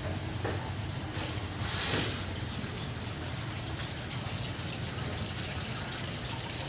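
Steady outdoor background noise with a low rumble and a constant high, thin tone, swelling briefly about two seconds in.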